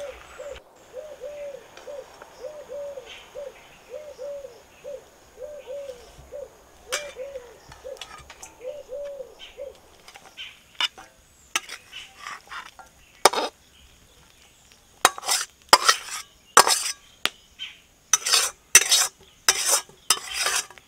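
Metal spatula scraping and knocking against a metal wok and a steel bowl as cooked pumpkin greens are scraped out, in a run of sharp scrapes and clanks that grows busier in the second half. In the first half a bird repeats a low call about twice a second.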